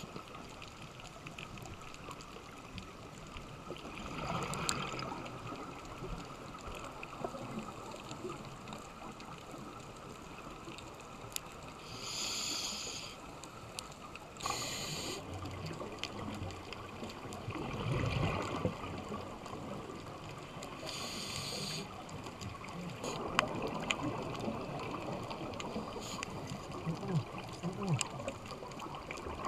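Scuba regulator breathing heard underwater: three short hissing inhalations through the regulator, between swells of exhaled bubbles gurgling past. A low, steady water noise fills the gaps.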